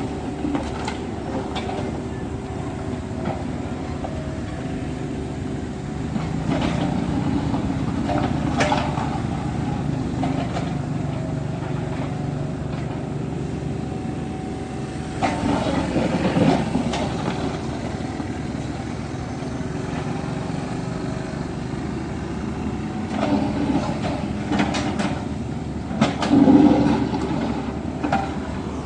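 Kubota U50 mini excavator's diesel engine running steadily under work, with irregular clanks and scrapes from the bucket working the ground, the loudest about midway and again near the end.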